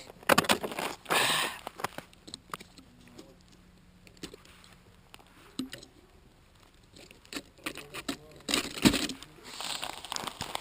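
Close handling noise: clusters of clicks, taps and rustling, in two spells, one around the first two seconds and one near the end, with a quieter stretch between.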